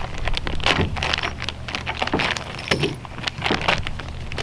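Plastic packaging bag crinkling and rustling in irregular bursts as it is handled and opened, over a steady low hum.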